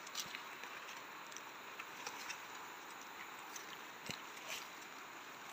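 Quiet forest ambience: a faint, steady hiss of background noise with a few soft scattered clicks and a low thump about four seconds in.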